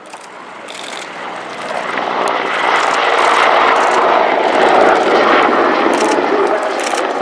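Mi-24 Hind attack helicopter in flight: its twin turboshaft engines and main rotor make a dense, even roar that grows louder over the first three seconds and then holds steady.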